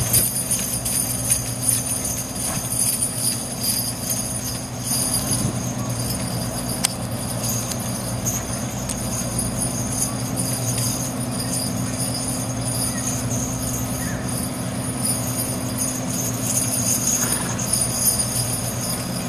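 Harness hardware on a pair of draft horses jingling steadily as they pull a carriage, with soft hoof beats and a steady low hum underneath.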